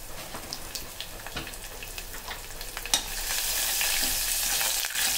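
Tempering of cumin, urad dal, dried red chillies, curry leaves and garlic frying in hot oil in a steel pot: a sizzle with scattered pops and crackles. About three seconds in there is a click, and the sizzle turns louder and denser.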